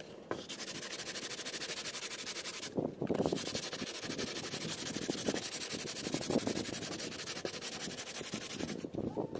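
Sandpaper rubbed rapidly back and forth by hand along the trimmed edge of a cured fibreglass fairing panel, a steady scratching hiss. It pauses briefly about three seconds in and stops near the end.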